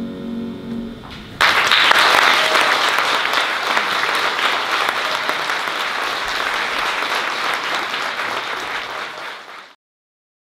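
The final chord of a piano accompaniment dies away, then about a second and a half in an audience breaks into applause, which carries on steadily and cuts off abruptly near the end.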